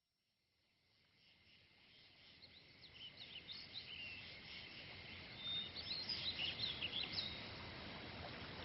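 Birds chirping and calling, many short quick chirps over a steady rushing background, fading in over the first few seconds: a nature-sounds bed of the kind that opens a new-age music track.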